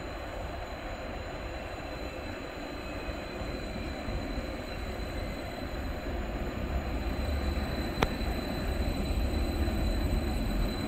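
Stadler FLIRT Class 755/4 bi-mode multiple unit running on its diesel engines as it draws into the platform: a low rumble of engines and wheels that grows louder as it comes closer, with a single sharp click about eight seconds in.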